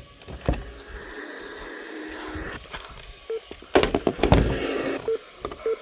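Radio receiver audio with an electronic buzzing data tone for about two seconds, like an Emergency Alert System header burst. It is followed by a loud burst of crackling clicks about four seconds in and a few short beeps.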